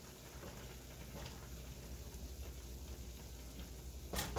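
Covered pot of pasta water boiling on the stovetop: a faint pattering over a steady low hum. Two sharp clicks come near the end.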